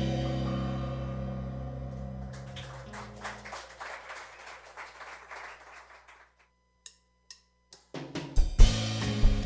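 Live rock band: a held chord dies away into a few seconds of fading noise, then a near-silent pause broken by three short clicks. About eight seconds in, the drum kit and guitars start the next song with hard kick-drum beats.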